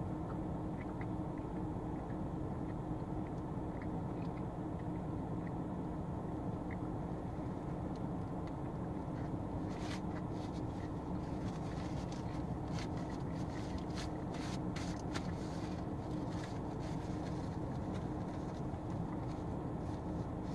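Steady low hum of a parked car idling, heard inside the cabin. From about halfway through, crinkling and rustling of a paper food wrapper and napkin.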